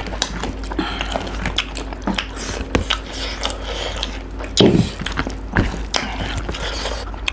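Close-up eating sounds: chewing and crunching, with many short wet clicks and smacks and one louder thump a little past halfway.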